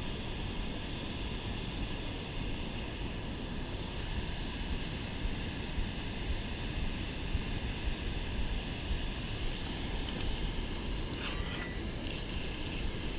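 Steady rush of river water pouring over a spillway weir, with wind on the microphone. Near the end comes a brief whir of a spinning reel being cranked against a heavy fish.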